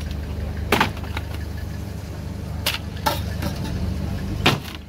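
Claw hammer striking a wooden frame to knock it apart: a handful of sharp, irregular knocks, the loudest near the end. Under them runs a low steady engine hum.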